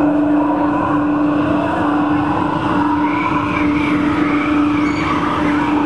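A steady drone held on one low note, with fainter wavering higher tones over it, from the live music accompanying the dance.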